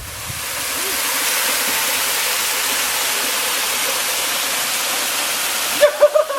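Waterfall rushing: a steady hiss of falling water that swells in over the first second and cuts off suddenly near the end, where a voice comes in.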